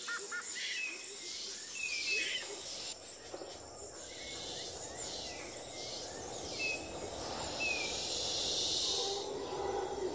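Outdoor wildlife ambience: short, high chirps that fall in pitch, every second or two, over a pulsing, high-pitched buzzing chorus.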